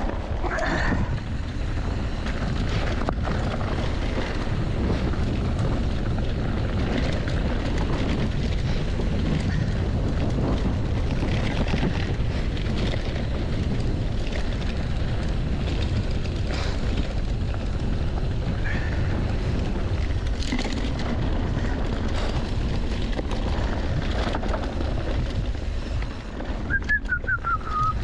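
Wind buffeting the camera microphone while a mountain bike rides down a dirt trail, with steady tyre and rolling noise and scattered knocks from the bike over rough ground. A short squeal comes near the end.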